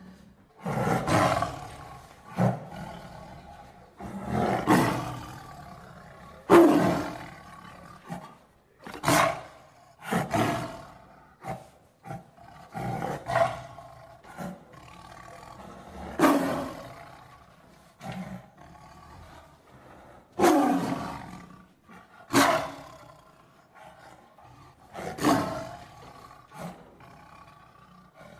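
Tiger roaring repeatedly: a string of short, loud roars, one every one to two seconds.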